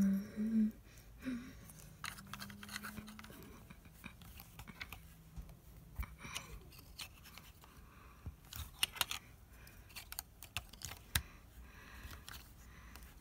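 Small plastic LEGO minifigure parts being handled and pressed together: scattered light clicks and taps, with a few sharper clicks in the second half.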